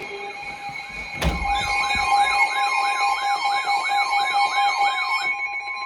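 Weather radio warning alarm tone, a steady high beep held for several seconds, with a siren yelping rapidly up and down over it from about one and a half to five seconds in. There is a sharp click about a second in.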